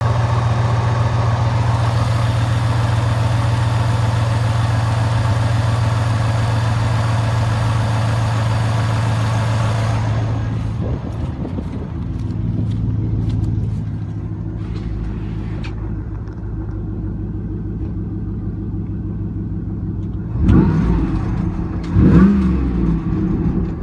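Magnuson-supercharged 5.3-litre Chevrolet SSR V8 idling steadily. For the first half it is heard close up at the engine with a bright hiss over the low hum, then duller from inside the cabin. Near the end it is briefly revved twice.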